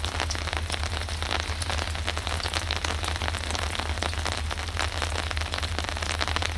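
Rain falling close to the microphone, a dense, irregular crackle of drops with no rhythm, over a steady low hum.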